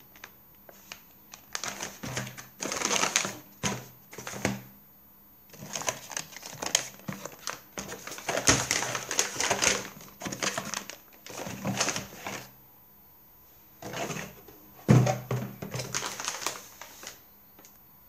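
Cardboard box flaps and plastic pouches rustling and crinkling as they are handled and pulled from a box, in three stretches of irregular rustles and clicks with short pauses between.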